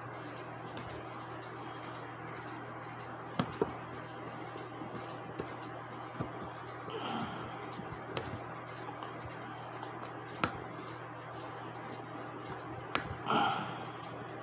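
Sharp metal clicks and taps from the brass parts of a Schatz 8-day cuckoo clock movement being handled and worked apart by hand. The clicks come singly, a few seconds apart, over a steady low hum.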